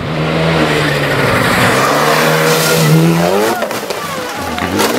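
Rally car engine running hard at high revs, its pitch swinging up and down around three and a half seconds in. Near the end come several sharp impacts as the car crashes off the road into the trees.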